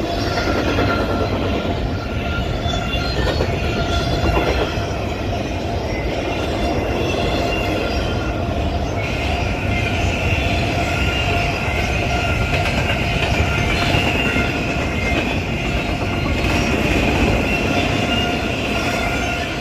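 Steady rumble of a vehicle in motion at an even speed, with a whine held at a few fixed pitches.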